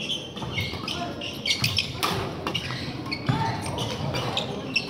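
Badminton doubles rally: sharp racket strikes on the shuttlecock, the strongest about two seconds in, with short shoe squeaks and footsteps on the wooden court floor, echoing in a large hall.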